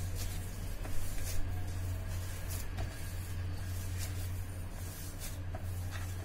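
A hand kneads crumbled chhena (fresh cottage cheese) with semolina on a plastic plate, making soft, irregular squishing and light scraping sounds over a steady low hum.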